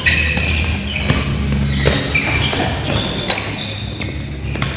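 Badminton rally: several sharp racket hits on the shuttlecock, the loudest about three seconds in, with players' shoes squeaking on the court mat between shots.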